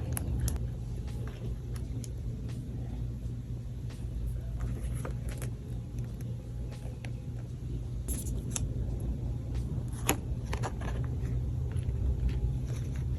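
Scattered light clicks and taps from handling an iPad and its packaging, over a steady low hum.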